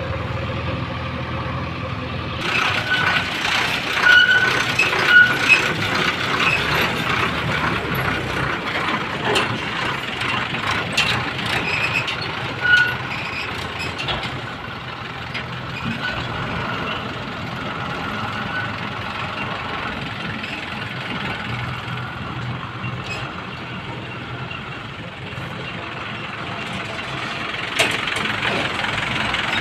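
JCB 3DX backhoe loader's diesel engine running under load close by, as the machine digs and loads. Scattered knocks of soil and stones are heard, along with a few short high tones.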